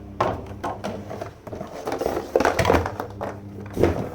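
Irregular knocks, clicks and rustles from the mechanical keyboard and its plastic dust cover being handled, loudest a little after halfway and again near the end.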